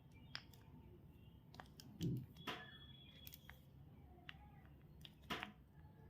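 Faint handling of chocolate and candy packaging: scattered sharp clicks and crinkles, with a soft thump about two seconds in.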